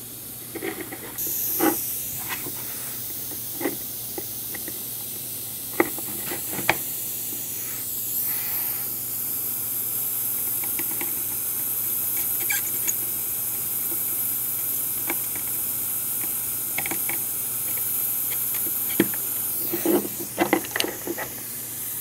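Steady hiss of a butane soldering iron burning, starting about a second in, while the iron heats the pins of a connector on a circuit board. Scattered small clicks and taps of a thin screwdriver prying at the connector's metal pins.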